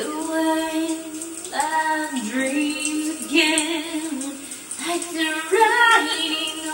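A woman singing in playful funny voices, holding notes and sliding between pitches, with no bass accompaniment heard.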